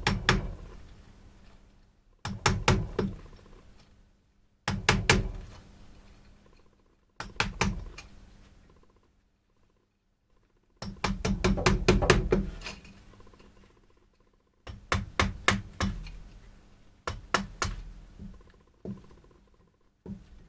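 Mallet driving a chisel into weeping willow wood: short bursts of quick, sharp blows every two to three seconds, with a longer run of blows near the middle.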